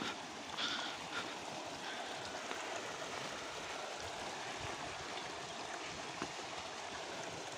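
Water of a small spring-fed stream running steadily over stones and leaves in a shallow channel.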